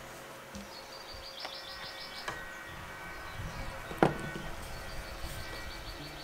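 A small bird's fast, high trill, once for about a second a little past one second in and again near the end, over soft background music. A single sharp knock about four seconds in, as a metal butter knife is set down on the wooden board.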